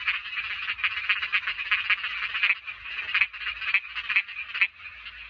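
Small frogs (khiat) calling in a chorus: a dense, fast run of clicking croaks that thins out and gets quieter near the end.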